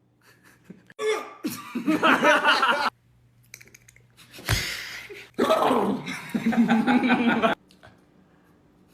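Two loud bursts of made-up, non-word vocal noises, with laughter-like sounds, about a second in and again about five seconds in. A short sharp knock comes between them.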